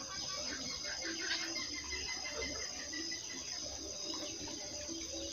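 Outdoor ambience of a steady high-pitched insect drone, with scattered bird chirps and hens squawking now and then.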